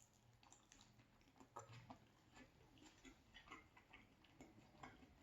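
Faint, irregular mouth clicks and crunches of someone chewing a bite of crunchy pizza crust.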